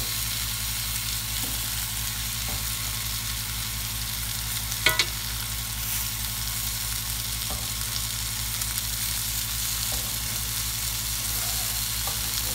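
Pizza-dough pinwheels sizzling steadily in olive oil in a hot cast-iron skillet, over a low steady hum. One sharp click stands out about five seconds in, with a few fainter ones.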